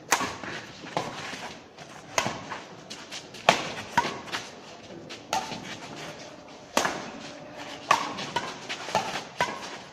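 Badminton rackets striking a shuttlecock in a fast doubles rally: a sharp hit about once a second.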